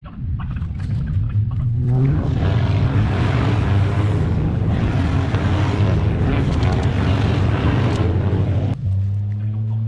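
Racing cars running on the circuit, their engines a dense, steady drone mixed with wind noise. About nine seconds in the sound changes abruptly to a steadier, even-pitched engine drone.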